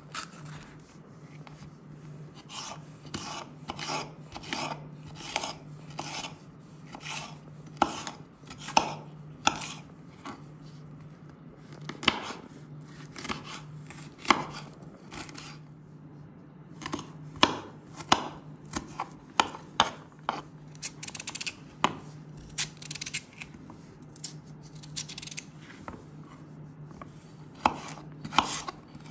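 Kitchen knife chopping vegetables on a bamboo cutting board: quick runs of sharp knocks of the blade on the wood, a few a second, broken by short pauses.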